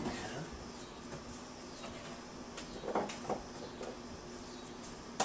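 A pan being taken out of a kitchen cupboard: a few light knocks and clacks about three seconds in, with a sharp click at the very end.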